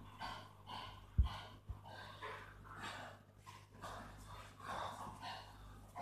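A pug and a Labrador play-wrestling: rapid noisy breaths, a few each second, with a sharp thump about a second in.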